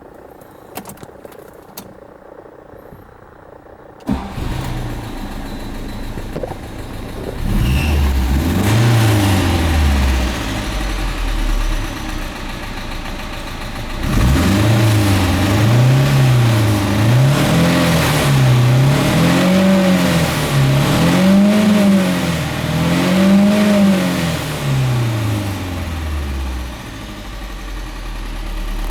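Carburetted engine of a 1960s stacked-headlight Mercedes-Benz starting about four seconds in and idling, then revved in blips: once, then five in a row, before settling back to idle near the end. The carburettor has been freshly cleaned and correctly reassembled, and the engine is running back in proper tune.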